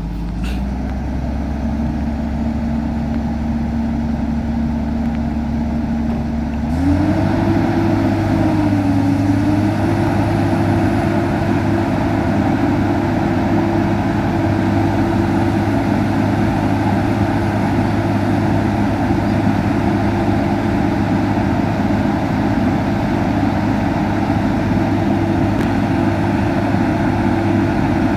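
Komatsu PC200 excavator's diesel engine running steadily, then speeding up about seven seconds in and holding at the higher speed.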